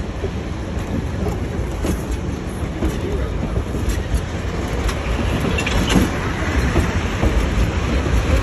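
Steam train heard from an open passenger car as it works up a steep grade: a steady rumble and rattle with scattered clicks, slowly growing louder.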